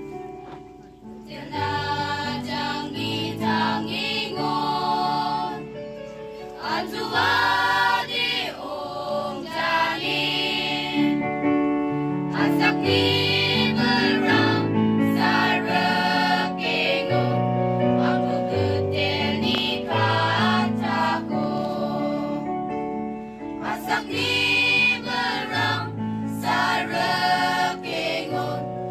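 A choir singing, coming in about a second in and carrying on with long held notes.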